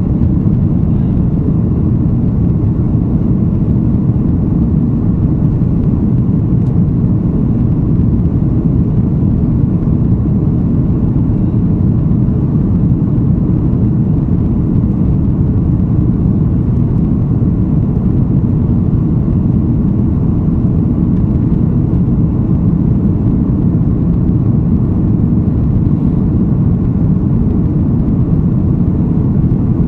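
Cabin noise of an Airbus A330-243 climbing after takeoff: the steady low roar of its Rolls-Royce Trent 700 engines at climb power and the airflow, heard from inside the passenger cabin. A faint steady whine sits on top.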